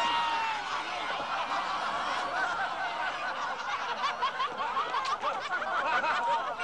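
A group of people laughing and snickering, many high voices overlapping.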